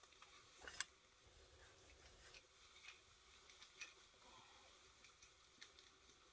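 Faint, scattered light clicks and taps over a near-silent background, the sharpest about a second in and again near four seconds.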